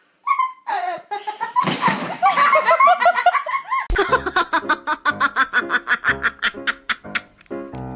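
A person laughing and giggling, then, from about halfway through, music with a quick steady beat takes over.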